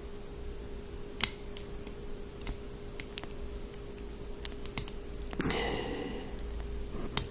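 Light, irregular metallic clicks from a hook pick lifting and setting the pin tumblers of a small six-pin cabinet lock under tension, with a brief louder rustle a little over two-thirds in.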